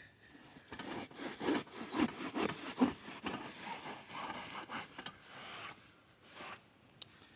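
Irregular rubbing and scraping, the handling noise of a phone held in the hand, in a run of short bursts that fades out near the end.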